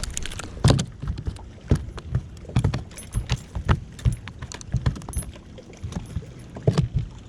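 A dozen or so irregular knocks and rattles of gear being handled in a fishing boat, over a low rumble of wind and water.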